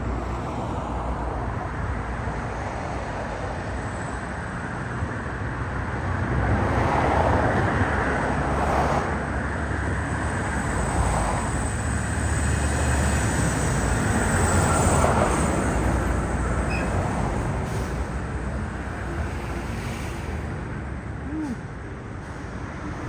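Road traffic noise: a steady hum of passing vehicles with a low rumble, swelling louder as vehicles go by about seven seconds in and again around fifteen seconds.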